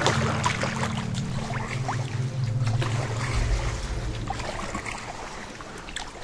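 A kayak being paddled through moving water, with the paddle blades making irregular splashes and drips.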